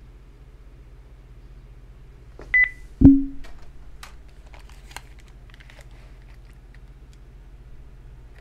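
A short electronic beep, then a loud knock with a brief low ring, followed by scattered small clicks and rustles as over-ear headphones are put on, all over a steady low electrical hum.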